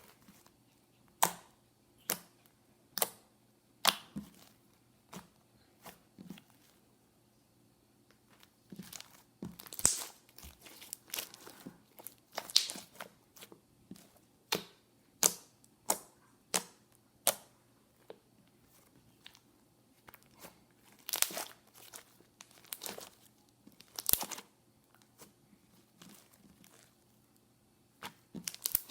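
Homemade glue-and-borax slime being squished and poked by hand for ASMR: sharp wet pops and crackles as trapped air bubbles burst, about one a second at first, with busier runs of crackling in the middle and again later.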